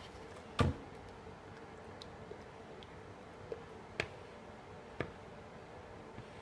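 A few scattered light knocks and clicks of containers and utensils being handled, the loudest about half a second in, over a faint steady hum.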